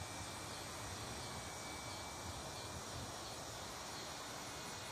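Faint, steady outdoor background noise with a thin, high, unchanging tone.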